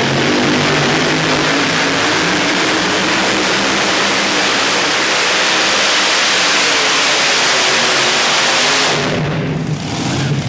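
Unlimited-class pulling tractor's twin supercharged V8 engines running flat out during a pull, a loud, dense, unbroken engine noise. About nine seconds in it drops off sharply as the throttle comes off, settling to a lower, uneven engine rumble.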